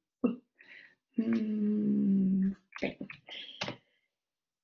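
A voice holding a steady hummed note for about a second and a half, like a hesitating 'mmm', followed by a few short soft sounds.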